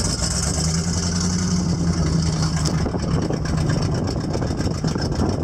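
A motor vehicle engine running, a steady low hum over a constant rumble; the hum fades out about two-thirds of the way through.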